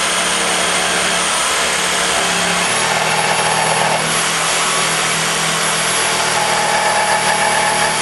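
Battery-powered jigsaw running at full speed, its blade sawing steadily through plywood. The motor's whine steps up in pitch about two and a half seconds in, and the saw cuts off suddenly at the end.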